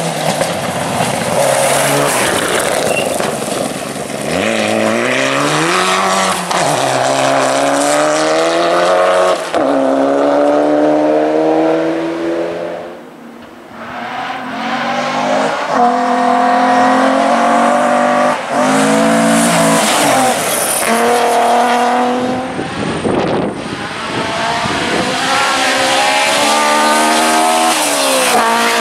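Rally cars at full throttle, engines climbing in pitch through each gear and dropping back at every upshift, with short lifts off the throttle. The sound dips briefly about halfway through and again later, as the car passes or the shot changes.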